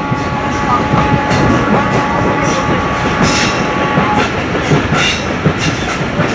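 Moving passenger train heard from inside a coach: wheels rumbling and clattering over the rails. A faint, steady, high wheel squeal runs for the first four seconds or so and then stops, and clicks from the rail joints follow in the second half.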